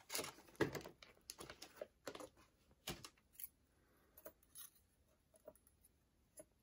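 Plastic packaging rustling and thin metal cutting dies clicking lightly as they are handled and set down on a table, a quick run of clicks and rustles in the first half, then a few scattered faint taps.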